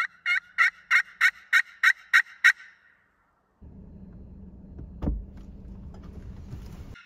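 Turkey call run as a locator, giving a series of sharp hen yelps at about three a second that stops about two and a half seconds in. It is followed by a steady low rumble with a single thump.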